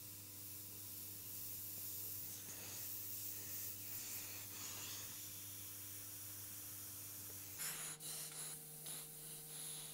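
Faint, steady air hiss of a gravity-feed airbrush spraying paint, with a sharp click about eight seconds in.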